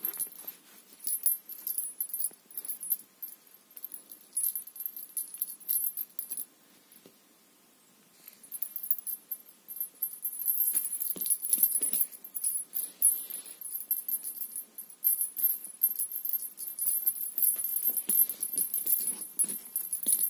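The small bell on a feather-wand cat teaser jingling in repeated bursts as the wand is shaken and the cat bats at it, pausing for a second or two about seven seconds in.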